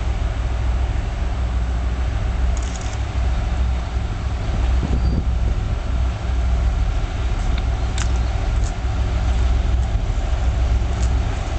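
Three-section 3M62 diesel locomotive working under load as it pulls a freight train away, its two-stroke V12 diesel engines giving a deep, steady drone that grows slightly louder as it approaches. A couple of sharp clicks come in the second half.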